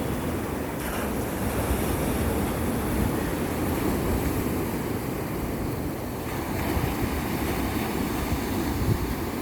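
Sea waves and surf washing continuously, a steady noise with no distinct breaks.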